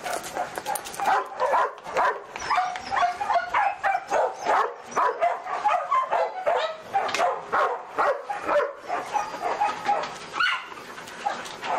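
Dogs barking and yipping in quick, unbroken succession, about two or three short calls a second.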